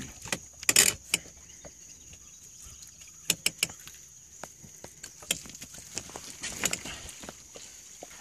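Cast net's hand line being hauled in over the boat's bow and coiled, with scattered clicks, knocks and rustles, the loudest just before a second in. A steady thin high-pitched tone sits behind.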